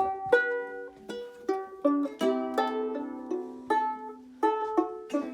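Plucked string instrument, handled as a banjo, playing a slow good-night tune: picked single notes and chords about two or three a second, each ringing on, with a longer held chord near the middle.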